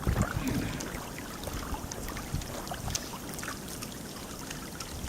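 Creek water running steadily, with scattered crunching steps in wet snow and slush.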